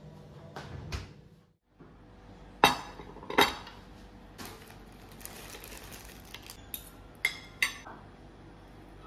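Metal spoon and fork clinking and scraping against a ceramic dinner plate while eating, with a few sharp clinks, the loudest two about three seconds in and two more near the end.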